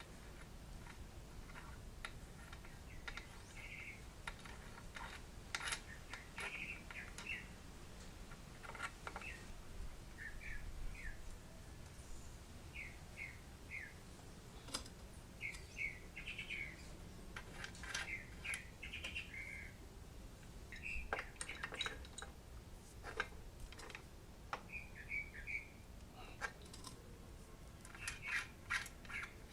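Small birds chirping in short clusters of quick high notes, repeated throughout, with scattered faint clicks and clinks.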